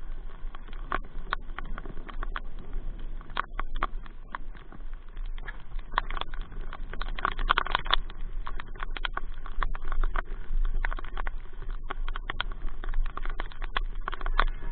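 Rain falling, with many irregular sharp taps of drops close to the microphone over a steady low hum.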